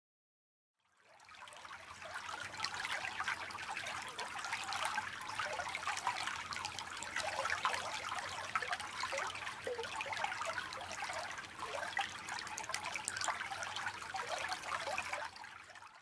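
A shallow creek trickling and babbling, a steady busy patter of running water that fades in about a second in and fades out at the end.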